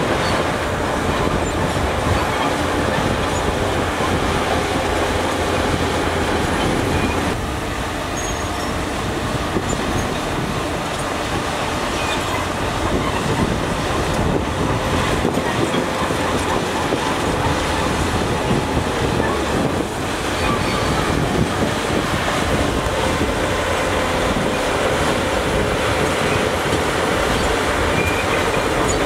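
Shantui crawler bulldozer working, its diesel engine running steadily under load while its steel tracks move.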